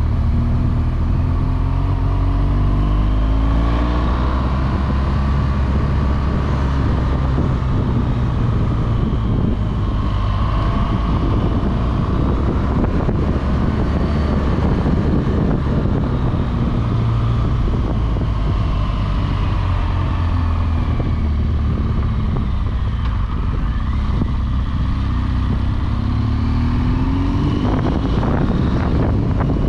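BMW R1200GS Adventure's liquid-cooled boxer twin running under way, its pitch rising and falling several times with the throttle. Wind noise on the microphone runs under it.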